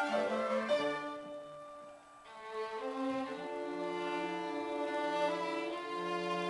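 A school string orchestra of violins and cello playing. A phrase dies away about a second in, and after a short pause the strings come back in with long held notes.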